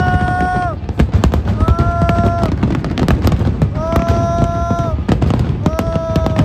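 Aerial fireworks going off in quick succession, many sharp bangs and crackles over a continuous low rumble. A held pitched tone of about a second sounds four times alongside, falling in pitch at its end.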